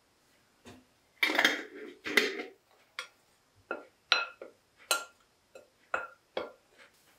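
Dry flour being mixed in a glass mixing bowl with a spoon. Two louder scraping rustles come early, then a run of sharp clinks of the spoon against the glass, each ringing briefly at the same pitch.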